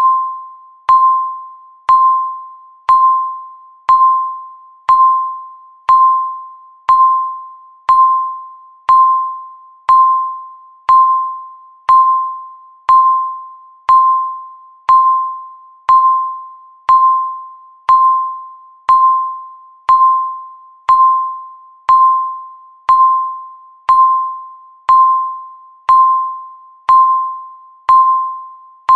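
Countdown timer beep: a single tone near 1 kHz sounding once a second, each beep starting sharply and fading away before the next, one for every second left on the countdown.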